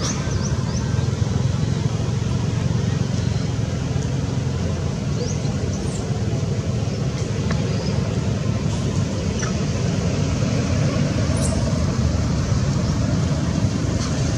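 Steady low rumbling background noise outdoors, with a few faint, short high chirps scattered through it.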